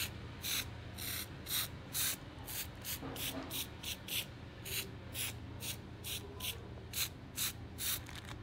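Aerosol spray paint can hissing in many short bursts, about two to three a second.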